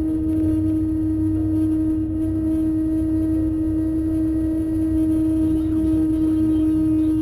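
A constant, steady droning tone inside the cab of a 2023 Kenworth day cab truck on the move, over a low rumble of engine and road. The cause is unknown: the driver wonders whether it is an air leak, a vibration or a design flaw.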